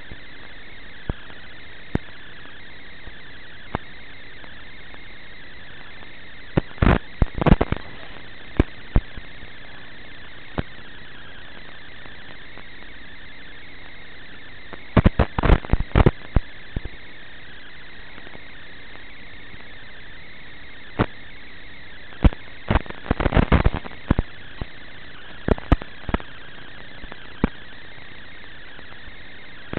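Steady radio static hiss with a faint high tone, from an analog FPV video receiver's audio channel recorded along with the drone's video feed. Single sharp clicks and three bursts of crackling pops break through the hiss.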